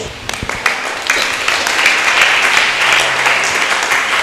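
Congregation applauding: a few scattered claps at first, filling into steady clapping about a second in.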